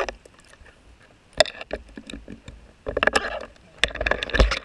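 Scuba diver's exhaled bubbles from an open-circuit regulator, heard underwater through the camera housing: irregular bursts of bubbling, a short one about a second and a half in, then longer, louder ones about three and four seconds in, the last with a deep rumble.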